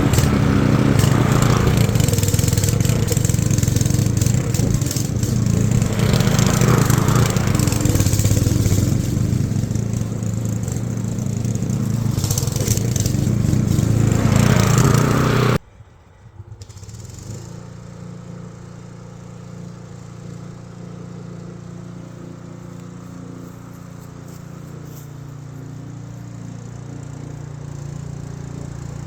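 Remote-control lawnmower's 224cc engine running loudly and steadily. About halfway through the loud sound cuts off abruptly, leaving a quieter steady engine hum that slowly grows a little louder.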